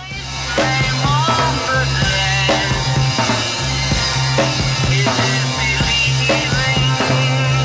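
Background rock music with drums.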